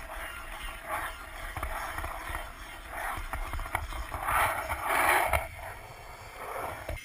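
Skateboard wheels rolling on rough concrete, the rolling noise swelling and fading as the board turns, loudest about four to five seconds in, over a low wind rumble on the head-mounted camera.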